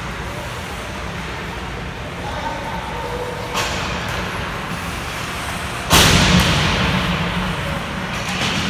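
Ice hockey arena din: a steady low rumble with faint voices, a sharp knock about three and a half seconds in, and a loud bang about six seconds in that rings on briefly.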